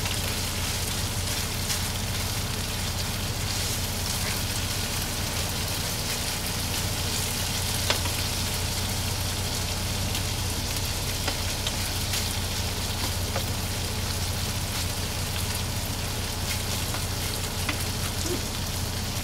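Chorizo and eggs sizzling in a frying pan: a steady crackling hiss with a couple of sharp ticks, over a steady low hum.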